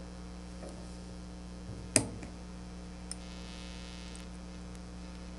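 Steady electrical hum with one sharp metallic click about two seconds in, then a faint tick and a soft rustle: small steel screws on a mill's Y-axis stepper-motor mount being worked loose with a small hand wrench.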